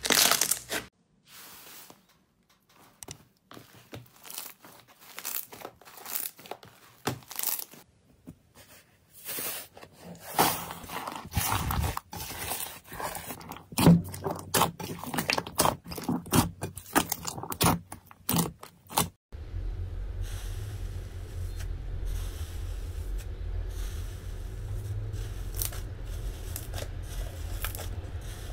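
Hands squishing, pressing and kneading slime, making irregular sticky clicks and crackles. About two-thirds of the way through the sound changes to softer crackling over a steady low hum.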